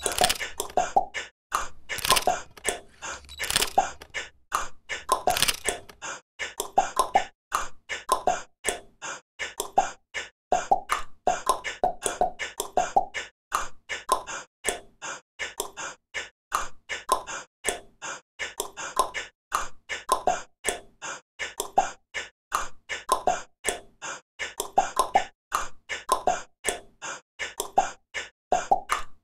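Percussive background music in a beatbox style: a quick, steady beat of mouth-made clicks and pops with short pitched vocal blips.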